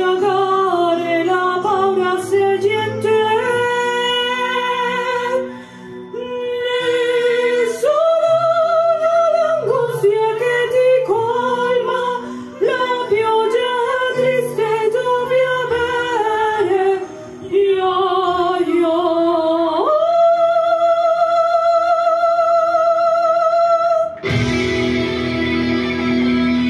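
Music: a solo singing voice with sparse guitar accompaniment, the melody ending in a long note held with vibrato. Near the end, a loud strummed guitar comes in.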